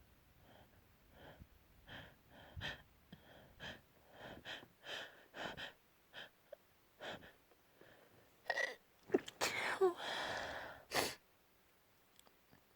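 A person building up to a sneeze with a string of short catching breaths, then a fit of sneezes from about eight and a half seconds in, ending with a sharp one near the end.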